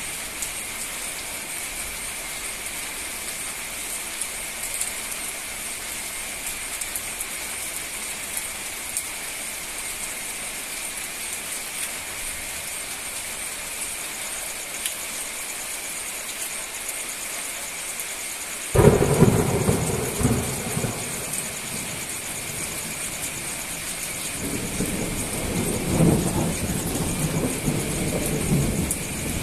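Heavy rain pouring steadily on a road and foliage. A little past halfway a sudden clap of thunder breaks in and rumbles off over a couple of seconds, and near the end a second, longer roll of thunder swells and fades.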